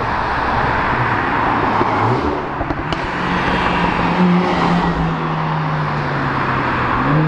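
Cars driving past with their engines running over steady road noise; one engine's note holds steady and then rises near the end.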